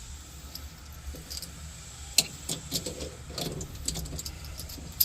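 Scattered light clicks and rattles of hydraulic hoses and their metal fittings being handled, over a low steady hum.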